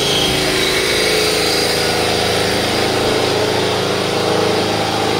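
A running engine's steady mechanical hum, constant and unchanging throughout.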